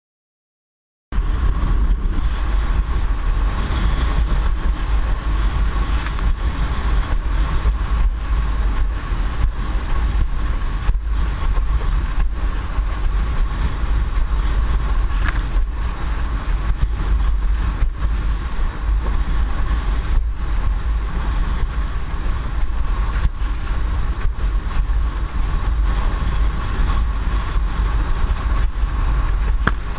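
Strong wind buffeting the microphone of a windsurfer's action camera, over the rush of water past the board, starting abruptly about a second in. A steady thin whistle runs through it, with scattered small clicks.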